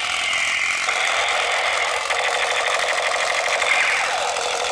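Battery-powered Captain America toy gun sounding its electronic effect: a steady, rapid rattling buzz with a high wavering tone over it, stopping just after the end.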